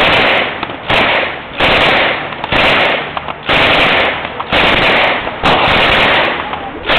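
9mm handgun firing about eight shots at a slow, steady pace of roughly one a second, each shot ringing out for most of a second.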